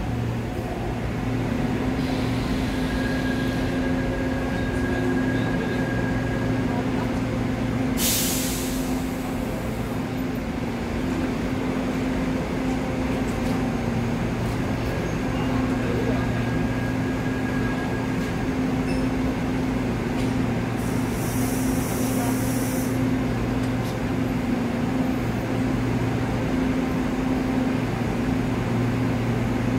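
Korail commuter electric multiple unit standing at the platform, its equipment giving a steady low electric hum. About eight seconds in comes a hiss of released air lasting about two seconds, and a fainter high hiss follows near twenty-one seconds.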